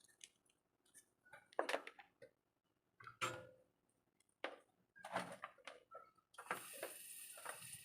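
Small repair tools clicking and tapping on a phone circuit board, a scattered handful of sharp knocks, then a steady airy hiss starts near the end.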